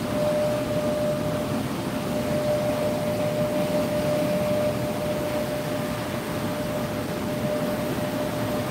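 Steady rush of water pouring through a river hydroelectric dam, with one steady tone running through it.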